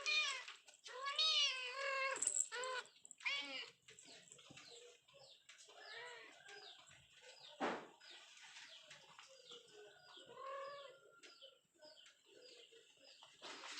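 Kitten meowing repeatedly: a run of loud, high mews in the first few seconds, then softer, scattered ones. A single thump a little before eight seconds in.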